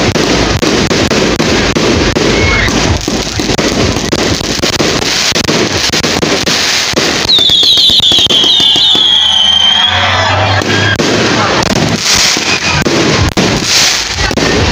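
A fireworks barrage going off close overhead in a continuous run of bangs and crackling. A little past the middle, several whistling shells sound together for a few seconds, their pitch falling.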